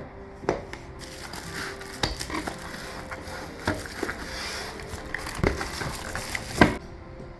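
Lock packaging being handled: rustling and crinkling, with about five sharp knocks as parts are taken out and set down, the loudest near the end.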